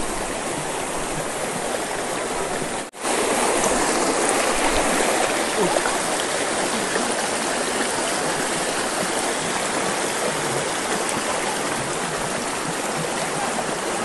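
Rocky forest stream rushing and splashing over boulders, a steady rush of water that breaks off for an instant about three seconds in and then goes on a little louder.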